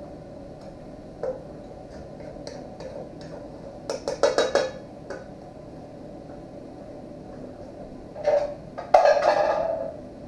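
Dishes clinking and clattering as plates are handled on a kitchen counter: a short cluster of clinks about four seconds in, then a louder, longer clatter near the end.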